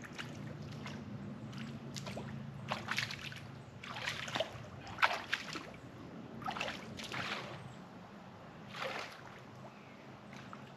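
Shallow lake water sloshing and splashing in irregular strokes as a person wades out barefoot, legs pushing through the water with each step.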